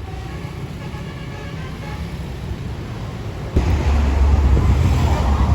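Low steady rumble of a bus engine with traffic, the last faint tones of a horn fading away at the start. About three and a half seconds in, a sudden loud low rushing noise, wind buffeting the microphone, takes over.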